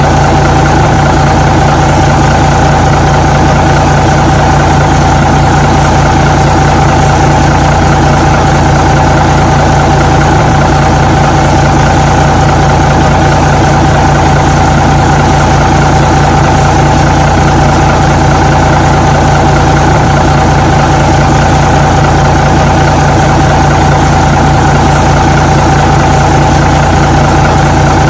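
Truck engine idling steadily at a constant pitch, with no revving.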